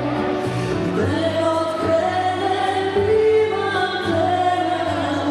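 A song: singing with held notes over musical accompaniment.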